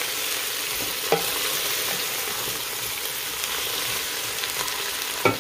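Sliced red potatoes sizzling in hot olive oil in a Ninja Foodi PossibleCooker pot on sauté mode, stirred and scraped with a wooden spoon. A sharp knock near the end.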